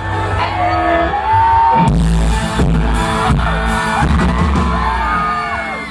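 A live pop-rock band playing with singing over it; about two seconds in a drum hit brings in the full band with heavy bass.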